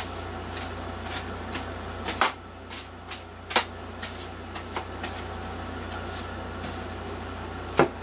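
A broom sweeping a floor: bristles brushing with scattered sharp knocks as the broom strikes the floor, over a steady low hum.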